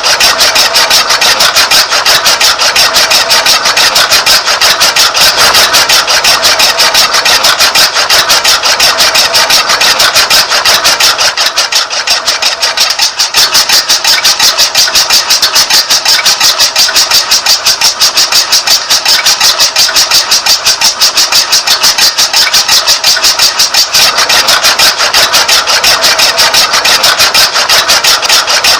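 Small DC motor of a homemade mini tractor model running steadily, a loud buzzing made of very fast, even clicks, easing off slightly for a moment about halfway through.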